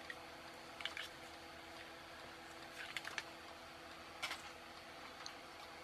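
Side cutters snipping the excess resistor leads off the underside of a circuit board: sharp clicks, two about a second in, a quick run of three around three seconds, and one more past four seconds, over a faint steady hum.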